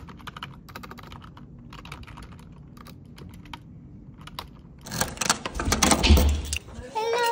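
Fast typing on a computer keyboard, a steady run of key clicks. About five seconds in it gives way to louder rattling and clunks of a key being turned in a door lock.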